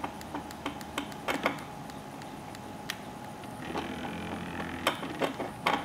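Homemade RepStrap 3D printer at work: its stepper motors tick irregularly with each short move of the print head, and whine briefly about four seconds in, over a steady hum.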